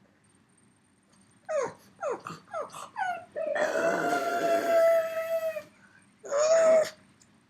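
Pug howling: a quick run of four or five short yelps, each falling in pitch, then one long steady howl of about two seconds and a shorter howl near the end. It is separation howling, the pug calling for his absent companion dog.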